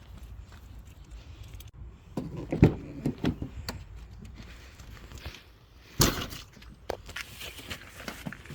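Scattered knocks and thumps of someone moving about and handling things, with one sharp bang about six seconds in.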